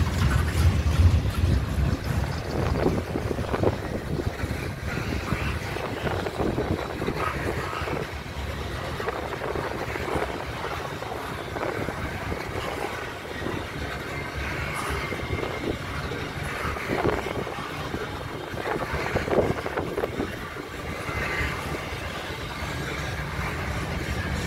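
Crude-oil tank cars of a long freight unit train rolling past: a steady rumble and clatter of steel wheels on the rails.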